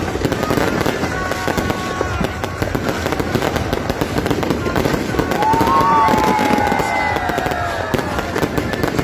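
Fireworks going off in rapid succession: a dense, continuous crackle of bursts. A drawn-out falling tone sounds over it from about five and a half seconds in.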